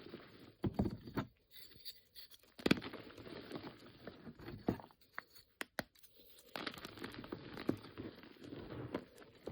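Bars of reformed gym chalk being crushed and crumbled by hand: irregular crunching, scraping and crackling, with a few sharp snaps in the middle.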